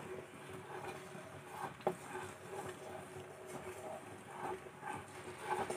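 Thick jaggery-and-tamarind candy syrup bubbling in a nonstick pan while a wooden spatula stirs it, faint, with small irregular taps and scrapes and one sharper tick a little under two seconds in.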